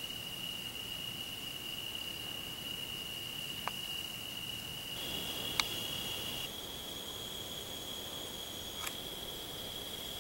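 Insects, crickets, trilling steadily at a high pitch; the trill shifts slightly higher about halfway through, with a second one briefly overlapping. A few faint clicks, like small twig snaps, come about a third of the way in, just past halfway and near the end.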